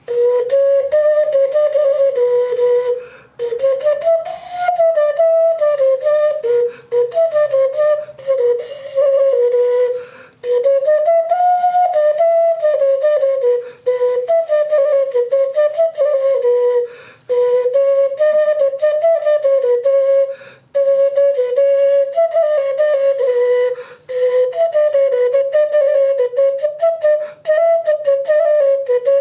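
Carrot flute, a carved carrot blown as a wind instrument, playing a simple melody in a clear, flute-like tone. The tune moves up and down in short phrases, with brief pauses between them.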